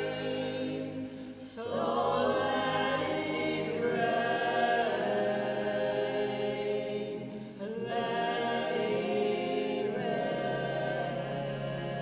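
Several voices singing together in sustained chords, like a choir, with short breaks between phrases about a second and a half in and again near eight seconds.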